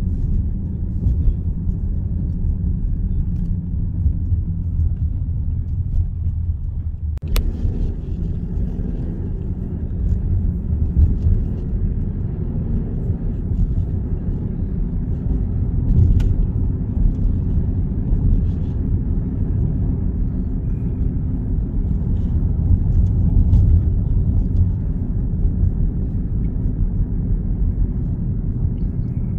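Steady low rumble of a car driving along a road, tyre and engine noise heard from inside the car, with one sharp click about seven seconds in.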